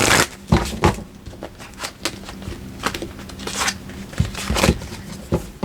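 Tarot cards being handled on a table: scattered soft slaps and rustles at irregular intervals.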